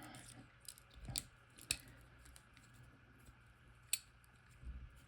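Scattered small metallic clicks and taps from Abloy padlocks and a picking tool being handled, the sharpest a little after one second, near two seconds and about four seconds in, over a low steady hum.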